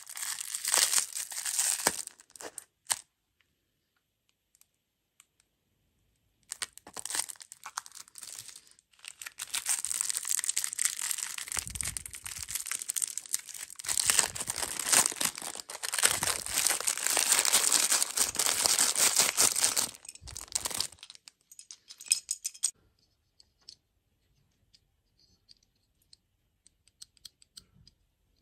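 A wrapper being crinkled and torn open by hand, as when unwrapping a surprise egg. There is a short burst at the start, a pause, then a long spell of crackling and tearing that stops about three-quarters of the way through, leaving only faint clicks.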